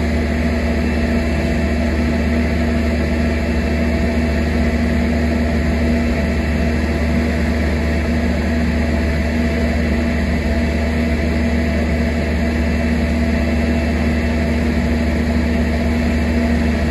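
An engine running steadily at an unchanging speed, an even hum with a strong low tone, likely the power unit of the rail-welding equipment.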